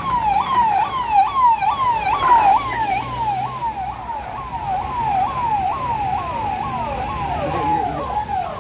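Vehicle siren sounding a fast repeating sweep, each tone falling in pitch and snapping back up about two to three times a second, over the low running of passing cars.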